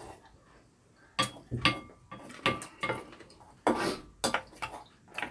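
Spoons and chopsticks clinking and scraping against ceramic rice bowls during a meal: a string of short clinks from about a second in, some with a brief ringing tone.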